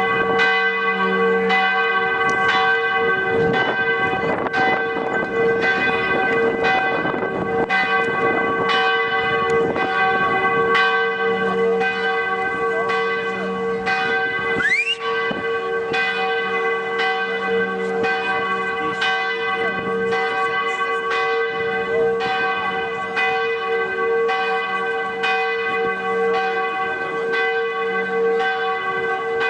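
The bells of Dresden's Hofkirche (Catholic Court Church) ringing a continuous peal: a steady succession of strikes, with the bell tones ringing on between strokes.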